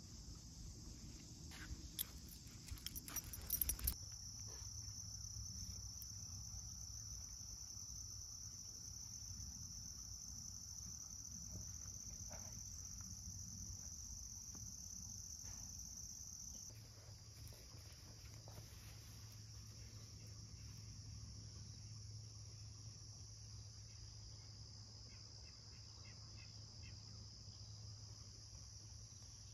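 Steady chorus of crickets and other insects, a continuous high buzz. A few sharp clicks in the first few seconds.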